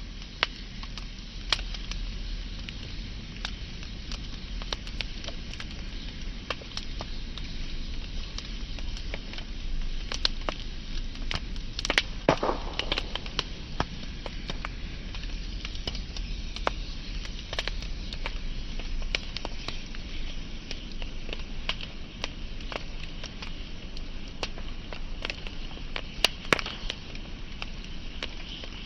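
Wood fire burning: a steady hiss with irregular sharp crackles and pops, and a louder, longer crackle about twelve seconds in.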